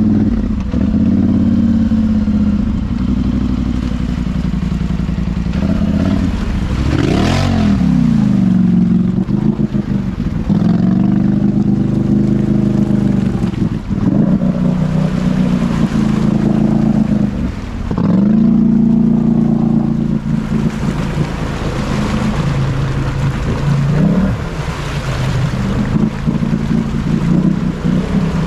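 ATV engine under heavy throttle while riding through deep mud and water, its revs dropping and climbing again every few seconds.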